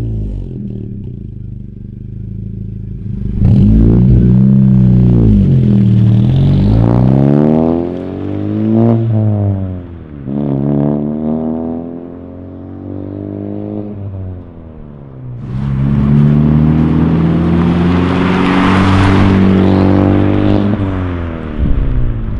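10th-gen Honda Civic Si's 1.5-litre turbocharged four-cylinder through an aFe Power cat-back exhaust, the car pulling away and accelerating through the gears, revs climbing and then dropping at each shift several times. The tone is raw and a little raspy.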